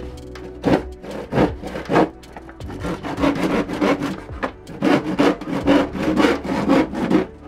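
Hand saw cutting through the red plastic of a toy scooter in back-and-forth strokes. The strokes are slower at first and speed up to about three a second roughly halfway through.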